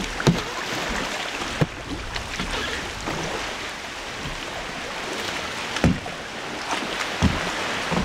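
Ocean water sloshing and washing around a sea kayak, with four sharp knocks spread through it.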